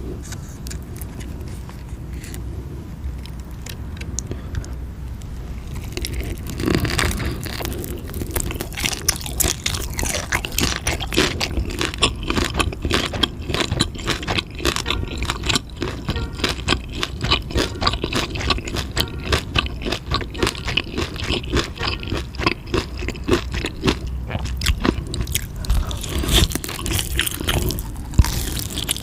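Chewing and crunching on roasted scallop skin and spicy boneless chicken feet: a dense run of wet clicks and crunches that starts about six seconds in. Before that there is a low steady hum with a few faint clicks.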